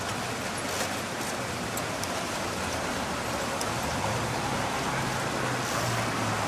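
Steady outdoor background hiss with a few faint light taps in the first half.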